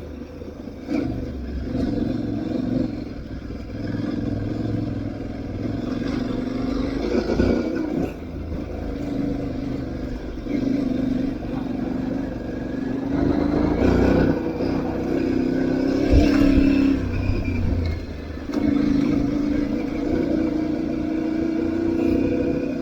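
Aprilia Tuareg 660's parallel-twin engine under a rider's changing throttle on an off-road ride: the engine note swells and drops every few seconds as the throttle is opened and closed. A few sharp knocks sound over it, the strongest about two-thirds of the way through.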